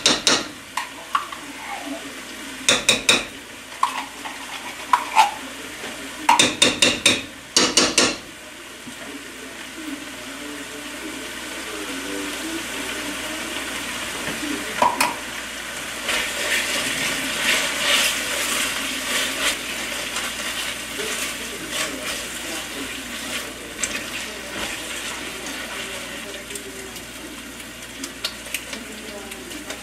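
Tomato paste scraped out of a can with a spatula into a stainless steel pan, with a run of sharp clinks and taps in the first eight seconds. Then a spatula stirs the paste through herbs and oil gently sizzling over low heat.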